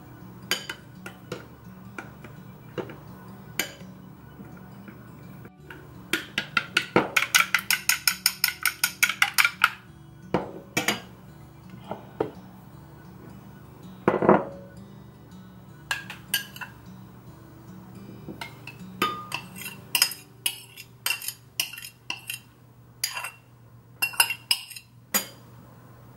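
A metal spoon beating egg mixture in a ceramic bowl. It clinks against the bowl in a quick run of strokes, about six a second, a quarter of the way in. Scattered clinks and taps of spoon on bowl follow, with a heavier knock as a glass baking dish is set on the counter around the middle, all over faint background music.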